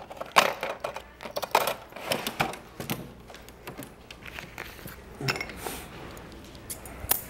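Metal grooming tools clinking and rattling as a hand rummages through an aluminium tool box, a string of irregular sharp clicks and knocks.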